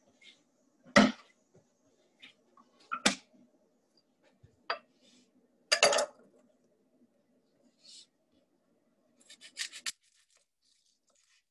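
Kitchen handling sounds: a few sharp knocks and clatters of utensils and a cutting board being handled, the loudest about a second in and about six seconds in. Near the end comes a quick run of about six chef's-knife cuts into an onion on a wooden cutting board.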